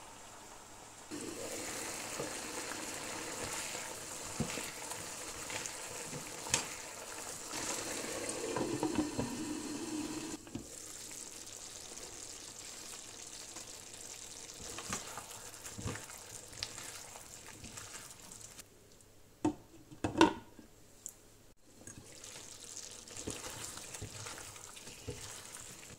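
Chicken and chestnuts sizzling in their sauce in a wok while peppers are added and stirred in. The sizzle is louder for the first ten seconds or so and softer after, with a few sharp knocks, the loudest about twenty seconds in.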